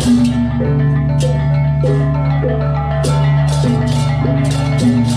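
Balinese gamelan playing: struck metal mallet instruments ring out held low notes that change every second or so, over fast, steady strikes.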